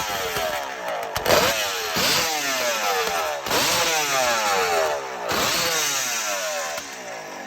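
Kawasaki H2 750 three-cylinder two-stroke motorcycle engine being revved in sharp throttle blips, about four times: each rev climbs quickly and falls away. The engine drops back toward idle near the end.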